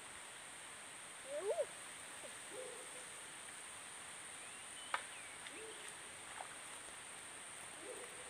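Short, low hooting animal calls, several a few seconds apart, the loudest a quick double call about a second and a half in. A thin, steady high whine runs underneath, with a single sharp click near the middle.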